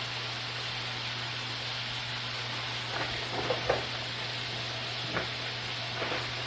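Meat sizzling in a frying pan: a steady hiss, with a few light clicks and scrapes of a utensil in the pan about three and five seconds in.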